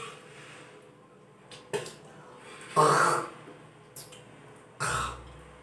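A woman making deliberate hawking and retching sounds and spitting: a few short, harsh throat bursts, the loudest and longest about three seconds in, with a sharp click near four seconds.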